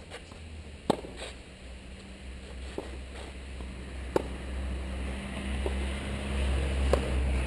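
Tennis rally on a clay court: three sharp racket-on-ball hits from the near player, about a second in, about four seconds in and near the end, with fainter hits from the far side of the court in between. A steady low wind rumble on the microphone runs underneath and grows louder towards the end.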